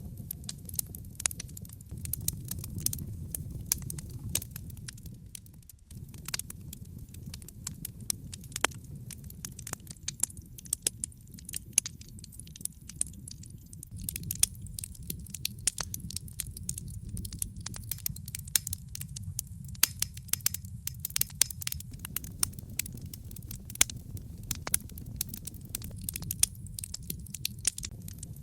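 Logs burning in a fireplace: dense irregular crackling and snapping with sharp pops, over a low steady rumble of the flames. The rumble briefly drops about six seconds in.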